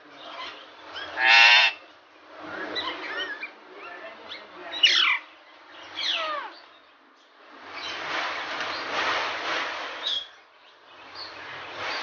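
Caged Alexandrine parakeets calling. A loud harsh squawk comes about a second in, then two sharp falling screeches around five and six seconds, then longer rough, noisy stretches from about eight to ten seconds and again near the end.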